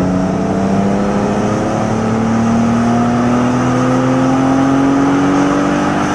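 BMW 335i's twin-turbo 3.0-litre straight-six (N54) at wide-open throttle on a chassis dyno. The engine climbs steadily in one unbroken rising pull from about 3,500 to nearly 6,000 rpm.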